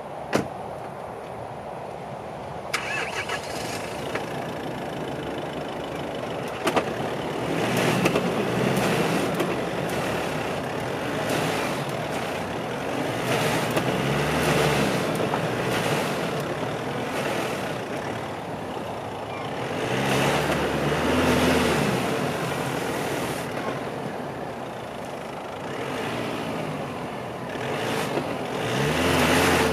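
A door shuts, then a Nissan Navara pickup's engine starts and is revved again and again in surges that rise and fall, as the truck sits stuck with its wheels spinning in wet grass and mud.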